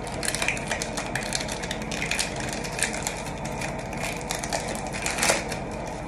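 Foil wrapper of a Pokémon booster pack crinkling and tearing as it is pulled open by hand: a quick, irregular crackle, with a louder crinkle about five seconds in.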